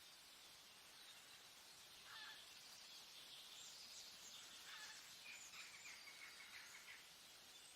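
Faint forest ambience: a steady high hiss with short bird chirps, a couple about two seconds in and a run of them between about five and six and a half seconds.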